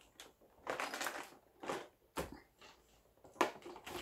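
Plastic tackle box full of fishing floats being handled and set down on a desk: a few scattered, faint rattles and knocks.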